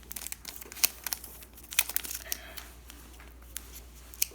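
Foil Pokémon booster pack wrapper crinkling and being torn open, in scattered sharp crackles.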